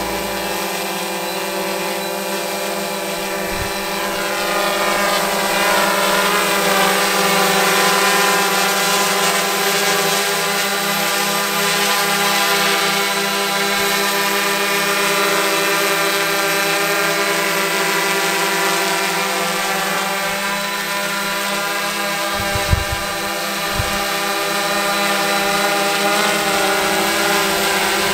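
Tarot 650 Sport multirotor's Gartt 330 kV motors and propellers humming as it hovers: a steady drone of several tones whose pitch drifts up and down as the motors hold position. Two brief low thumps come about three-quarters of the way through.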